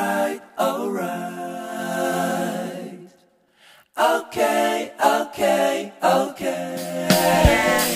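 A cappella vocal music: unaccompanied singing in sustained notes, one held for about two seconds, with a short break about three seconds in.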